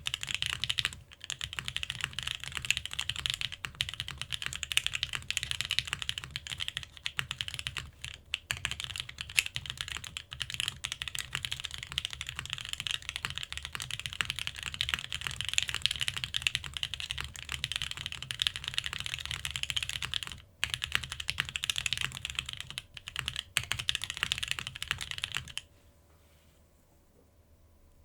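Continuous typing on a TGR x Monokei Jane V2 ME custom mechanical keyboard, built with lubed OP Black switches on a polypropylene plate in an O-ring mount and topped with GMK keycaps. It gives a dense stream of keystrokes that stops a couple of seconds before the end.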